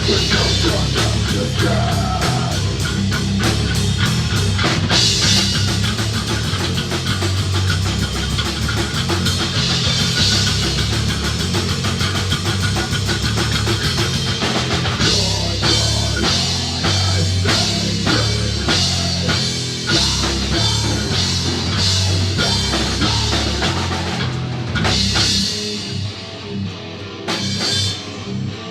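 A rock band playing a song live: heavy guitar over busy, fast drumming on a drum kit. The playing breaks up into stops and hits near the end.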